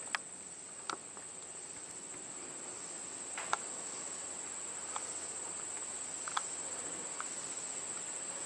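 Insects trilling in one steady, high, unbroken chorus, with a few sharp clicks scattered through it.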